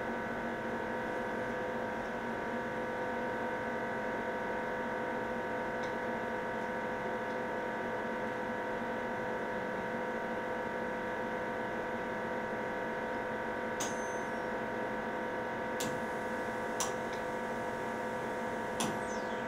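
Steady multi-pitched machine hum from the helium leak test station as the T-Guard accumulates and measures. Near the end come a few sharp clicks as the test completes and the station's valves switch.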